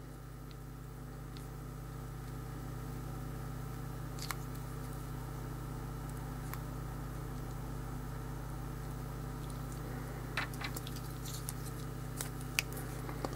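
Small hard plastic cube pieces from a disassembled ShengShou 7x7 clicking and tapping now and then as they are picked up and fitted together by hand. A handful of sharp clicks, a small cluster of them a little after ten seconds in and a couple near the end, over a steady low hum.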